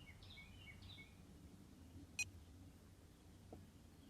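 Near silence with a faint low hum, broken about two seconds in by one short, high electronic beep from the handheld Bully Dog GT tuner as a button is pressed. A few faint high chirps sound in the first second.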